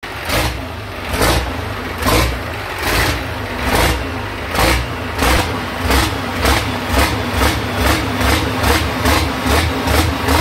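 Engine running at the exhaust pipe, warming up after a pump repair, under a steady low hum with a rhythmic puffing. The puffs come about once a second at first and quicken to about twice a second about halfway through, while the pipe blows dark smoke.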